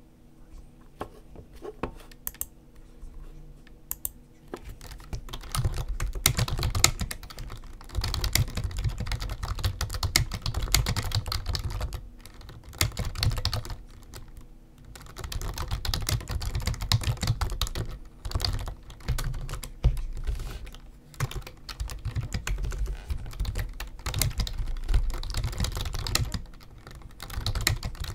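Typing on a computer keyboard. It starts with a few scattered key clicks for the first four seconds or so, then turns to fast typing in bursts broken by short pauses.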